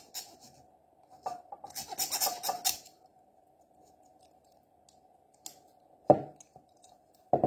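Metal nail file of a Victorinox SwissChamp rasping in a quick run of strokes against the plastic handle scale of a Kershaw Shuffle II folding knife, rounding off a sharp inner edge. A few light clicks follow near the end as knife and file are handled.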